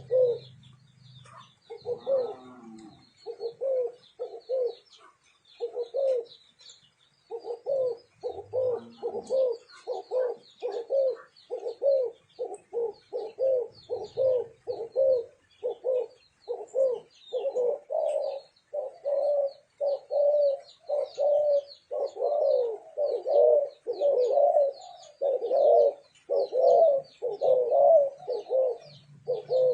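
Spotted doves cooing: a run of short, low, repeated coo notes, sparse for the first few seconds and then almost continuous, about one or two a second. Faint high chirping of small birds runs underneath.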